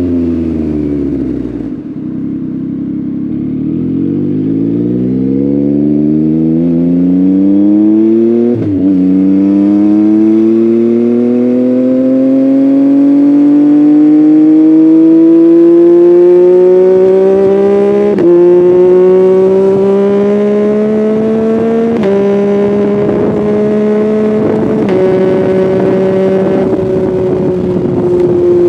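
Yamaha MT-09 inline three-cylinder engine through an Akrapovic full-system exhaust, heard from the rider's seat. Revs drop off briefly, then the engine pulls up through the gears, its note climbing and dropping sharply at four upshifts, about 9, 18, 22 and 25 seconds in, before easing slightly near the end.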